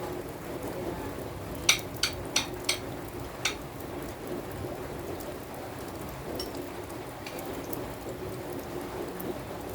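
Steady rain falling. About two seconds in come five sharp taps in quick succession.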